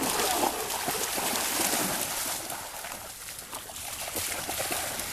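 Water splashing and trickling, a steady hissing wash that is loudest in the first couple of seconds and eases off slightly after the middle.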